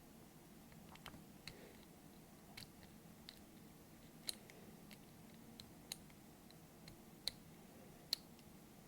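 Faint, irregular small metallic clicks of a lock pick working the pins of a door knob's lock cylinder, about a dozen spread over several seconds.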